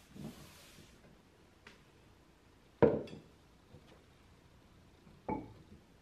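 A cloth wiping a cabinet top with a soft hiss in the first second, then two hard knocks, about two and a half seconds apart, as items are set down on the cabinet top. The first knock is the louder.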